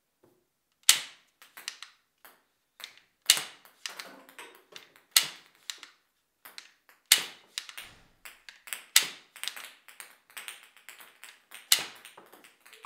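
Wooden rubber-band-powered ping pong ball revolver being worked and fired repeatedly: six sharp wooden snaps roughly two seconds apart, with lighter clicks and taps of the mechanism between them.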